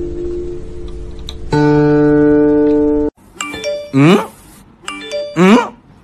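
Metal strings of an instrument a cat is lying across, a chord ringing and fading, then a louder held chord that cuts off suddenly about halfway. After that comes a looping music clip: short chime-like notes and a rising whoop, repeating about every second and a half.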